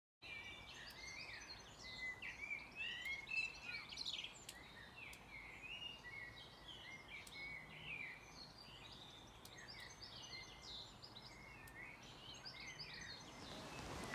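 Several small birds singing and chirping faintly, many short twittering calls overlapping, over a quiet background hiss.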